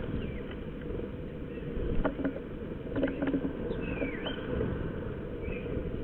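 Azure-winged (Iberian) magpies at a feeder: a few short knocks and wing flutters of birds landing and taking off about two and three seconds in, and thin calls that rise and fall about four seconds in and again near the end, over a steady low rumble.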